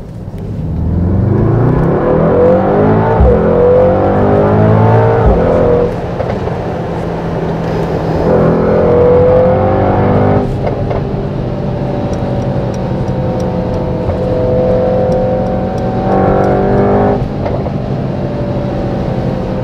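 Mercedes-AMG GT63 S 4-door coupe's 4.0-litre V8 accelerating hard, heard from inside the cabin. The engine's pitch rises through the gears, drops at upshifts about five and ten seconds in, then holds steady at cruising speed.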